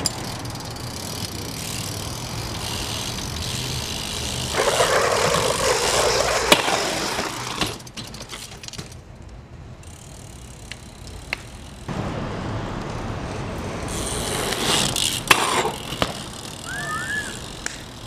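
BMX bike riding on asphalt with its tyres rolling. A loud scraping stretch about four and a half seconds in ends in a sharp hit, and a second scrape with sharp hits comes around fifteen seconds in, like the bike grinding and landing along a concrete barrier.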